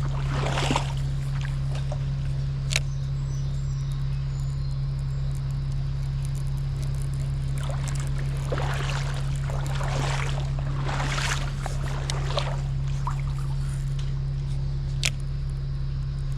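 Creek water sloshing and trickling, swelling twice, over a steady low hum, with a couple of sharp clicks.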